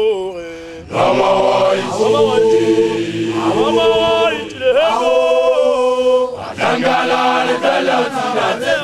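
Basotho men chanting a Sesotho initiation-school (makoloane) song: a lone male voice leads, and about a second in a group of voices joins, holding long notes that slide up and down together. In the last few seconds the group breaks into shorter, quicker phrases.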